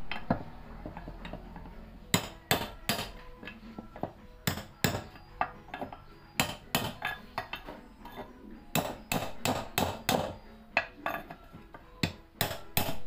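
Hammer blows on metal, coming in uneven runs of a few quick strikes with short pauses between, as a wedge is driven to free parts from a blower's metal housing.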